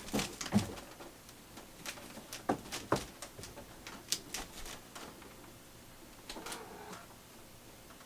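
Irregular light clicks and taps, a dozen or so at uneven spacing, loudest in the first half.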